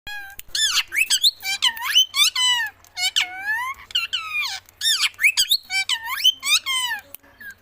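Parrot making a quick run of high, squeaky whistling calls, each one swooping down and back up in pitch, with short gaps between them.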